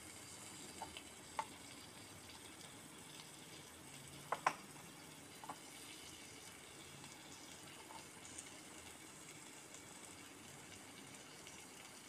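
Light clicks and taps of a tiny serving utensil against miniature clay pots, over a faint steady hiss; the loudest is a close pair of taps about four seconds in.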